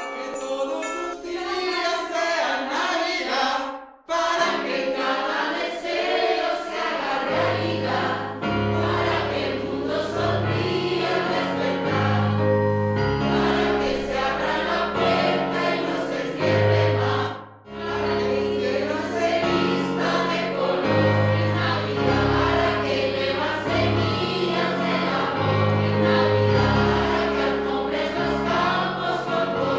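Choir singing a Christmas carol over instrumental accompaniment, with a bass line coming in about seven seconds in and two brief breaks in the music.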